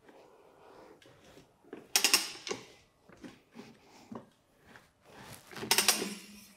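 Manual tire changer working the second bead of a stiff touring tire over a motorcycle rim: creaks and clicks from the machine and rubber, with two loud scraping bursts about two seconds in and again near the end as the bead is forced over the rim edge.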